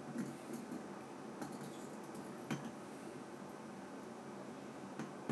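Faint handling sounds of a fingertip spinning a threaded retaining ring on an anamorphic lens element, with a few light clicks scattered through.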